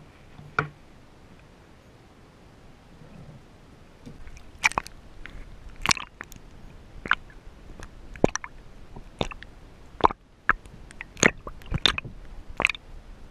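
Muffled underwater sound from a camera held below the surface: a low rumble of moving water with sharp, irregular clicks and knocks about once a second, starting about four seconds in. One sharp click comes under a second in.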